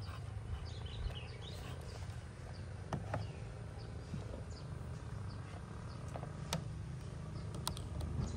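Outdoor background: short high chirps repeating about twice a second over a steady low rumble, with a few sharp clicks. The last click, near the end, comes as a power plug is pushed into a power strip.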